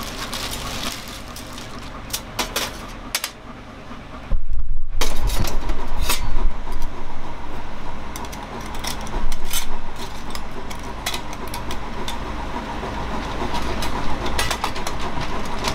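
Stainless-steel plates of a SOTO Mini Hexa folding fire stand clinking and rattling as they are fitted together by hand. From about four seconds in, heavier low thuds and handling knocks join the clinks.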